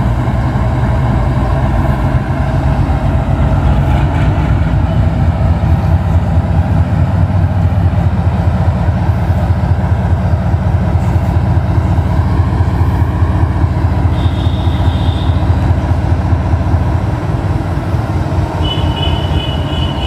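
GE WDG-6G diesel-electric locomotive running after start-up, its big diesel engine making a loud, steady, pulsing hum. It swells slightly a few seconds in and eases a little near the end. Faint short high-pitched tones come in about two-thirds in and again near the end.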